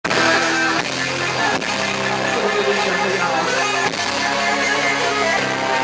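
Live rock band playing an instrumental intro, strummed guitar chords with bass, the chord changing about every second, before the vocals come in.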